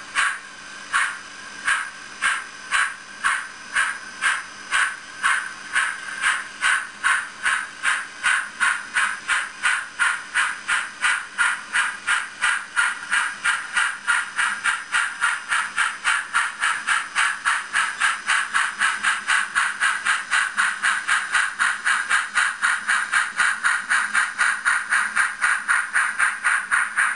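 H0n3 model steam locomotive's sound decoder chuffing through its small speaker, each chuff a short hiss. The chuffs quicken from about two a second to about four a second as the locomotive gathers speed pulling away.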